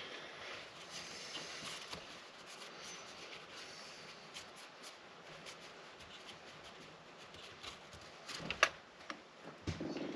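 Workbench handling noise of chainsaw parts and tools: faint rubbing and light clicks, with one sharp knock about eight and a half seconds in and a few softer knocks near the end.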